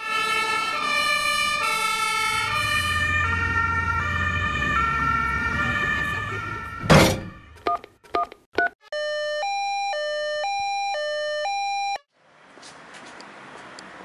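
A German fire engine's two-tone siren (Martinshorn) sounding its alternating high and low notes for about seven seconds, with the truck's engine running underneath. Then comes a loud whoosh, a few sharp clicks, and a clean two-note siren jingle for about three seconds that cuts off suddenly, followed by faint street noise.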